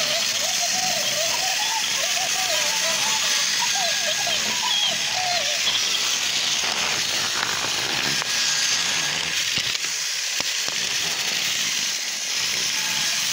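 Battery-powered toy train's motor running as it rolls along plastic track, heard as a steady whirring hiss from on board. For the first five seconds or so a high, wavering voice sounds over it.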